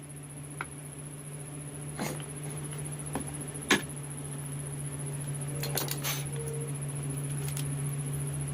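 Irregular sharp taps and clicks of carving tools working wood, a few strokes a few seconds apart with a small cluster about six seconds in, over a steady low hum.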